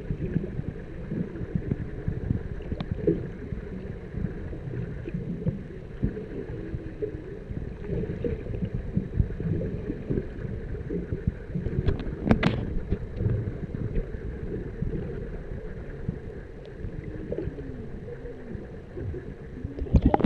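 Muffled underwater water noise, a steady crackling wash with little high end, with one sharp click about twelve seconds in and a few faint short pitch glides near the end.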